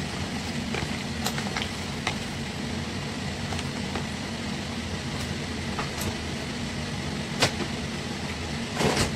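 Steady low hum of a running kitchen appliance or fan, with scattered small clicks and soft knocks as marinated chicken pieces are turned by hand in a plastic tub; a sharper knock comes about 7.5 seconds in and a few more near the end.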